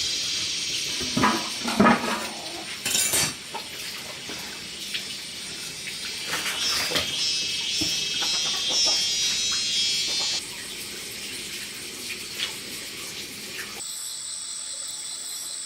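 A steady high chirring of night insects such as crickets, with a few knocks and rustles in the first few seconds.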